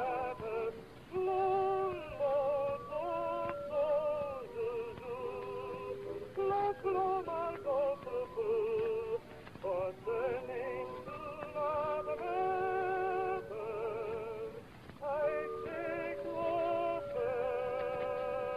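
Music with singing: a string of held notes sung with vibrato over accompaniment.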